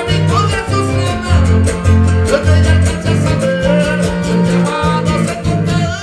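Live band playing a huapango, with a strong, pulsing bass line and a steady beat under plucked guitar-type strings.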